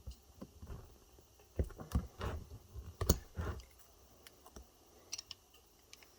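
Pliers working on a used e-bike battery pack, pulling nickel strip off the cylindrical cells: irregular small clicks and snaps, with a handful of louder knocks about one and a half to three and a half seconds in.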